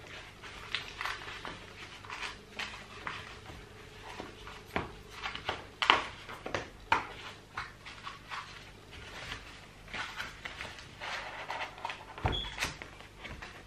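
Gimbal parts being handled in a foam-lined carrying case: a run of irregular small clicks and knocks of plastic and metal parts, with a dull thump near the end.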